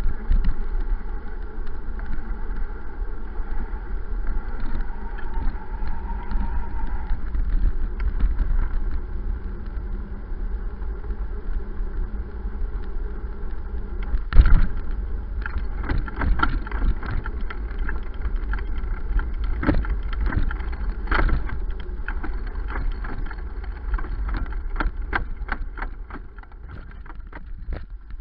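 Wind buffeting and rumble on a bicycle-mounted action camera while riding. In the second half come many sharp, irregular knocks and rattles as the bike goes over rough ground, one loud jolt first.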